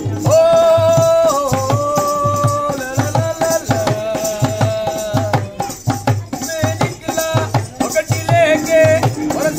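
Rajasthani folk music for a string-puppet show: a dholak drum beating a steady rhythm under a high, voice-like melody of long held notes.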